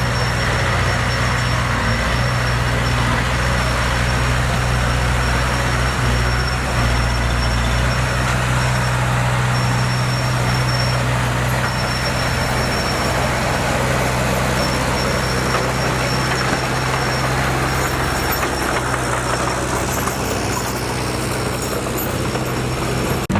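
Diesel engine of heavy earthmoving machinery running steadily under load, with a constant low drone and a thin high whine that drops in and out.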